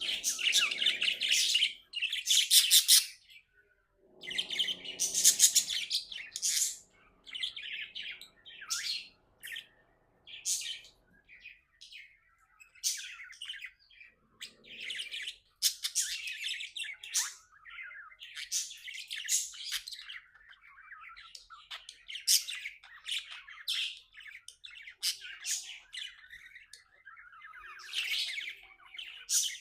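Pet budgerigars chirping and warbling in quick, high-pitched bursts, with short pauses between the clusters of calls.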